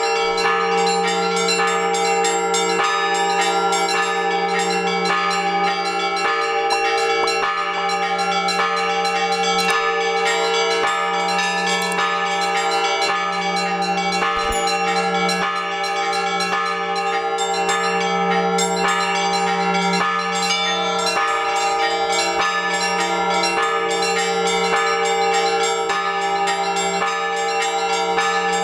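Orthodox church bells rung before the liturgy: several bells struck together in a quick, steady rhythm, small high bells chiming rapidly over a deeper bell struck regularly underneath.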